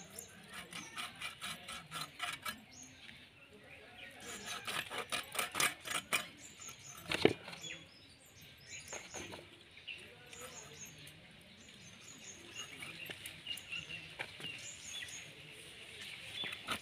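Raw duck meat being cut into small pieces on a bonti, a fixed upright curved blade, giving irregular small clicks and cuts with a sharper one about seven seconds in. Small birds chirp in the background.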